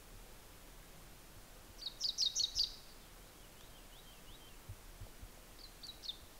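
Small songbird singing a quick burst of high chirps about two seconds in, with a few fainter chirps later, over quiet outdoor background noise.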